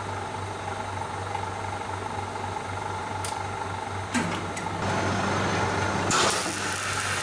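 Vacuum-packing machine's pump running with a steady hum. A click comes about three seconds in and a few more around four seconds, then the sound grows louder, with a rush of noise about six seconds in.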